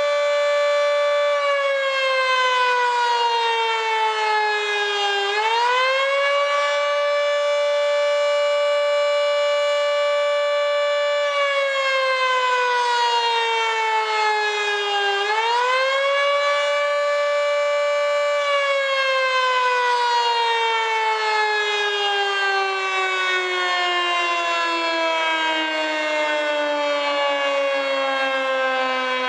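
Federal Signal 2T22 three-phase electromechanical warning siren, its top intake blocked, sounding the Attack signal. The pitch holds steady, sinks slowly, then winds quickly back up to full pitch, and this happens twice. In the second half it starts a long, slow wind-down.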